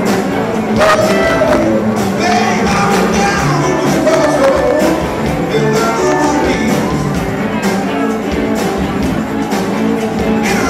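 Live band playing rock with Latin hand percussion: congas and a djembe over drum kit, electric guitar and keyboard, with singing.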